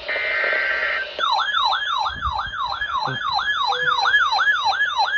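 EAS weather alert: the end of a brief burst of buzzy SAME header data tones, then, about a second in, a siren-like alert tone that falls in pitch over and over, about two and a half sweeps a second.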